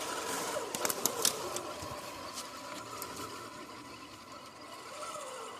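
Electric motor and gear drive of an RC rock crawler whining, the pitch drifting up and down with throttle, with a few sharp clicks about a second in.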